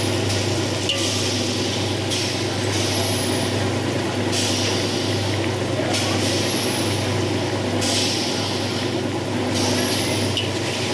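A pot of rice cooking, with steam hissing out in repeated spurts every second or two over a steady low hum.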